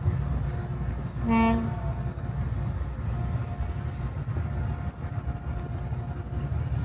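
A single short horn toot about a second and a half in, over a steady low rumble.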